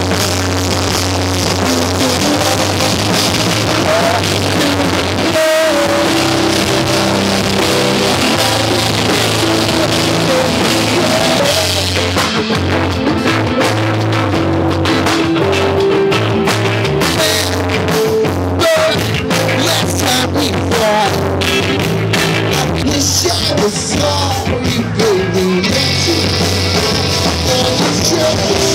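Loud rock music with a drum kit and electric guitar.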